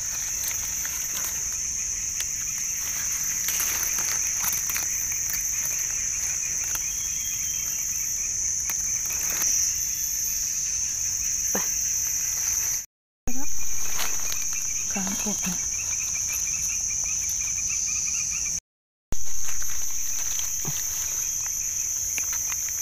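A steady, high-pitched chorus of night insects, with a second insect trilling in a lower, pulsing rhythm, over light rustling and clicks of leaf litter and mushroom stems being handled. The chorus drops out twice for a moment and comes back louder each time.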